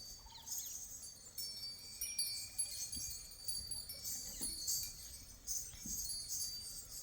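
Faint, intermittent jingling and ringing of small bells.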